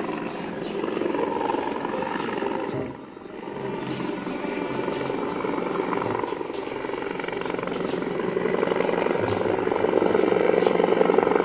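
Helicopter rotor beating steadily. It dips briefly about three seconds in, then grows louder toward the end.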